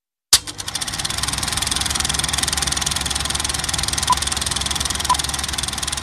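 Film projector running: a fast, even mechanical clatter that starts abruptly with a click. Two short beeps a second apart near the end mark the countdown leader.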